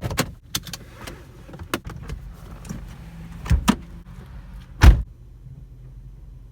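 A few scattered clicks and knocks inside a car, the loudest just before five seconds in, over the low steady hum of the car's interior.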